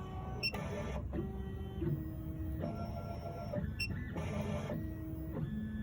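Miracle A9 key cutting machine's motors whining as its probe moves through a calibration measurement of the adapter: a series of steady tones that change pitch every half second to a second, with a few short ticks between moves.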